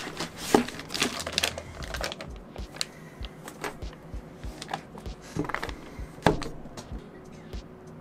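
Irregular clicks, taps and rustling of objects being handled, with the sharpest knocks about half a second in and just past six seconds in.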